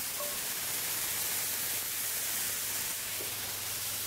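Mushrooms, cherry tomatoes and onion frying in oil in a hot pan: a steady sizzling hiss.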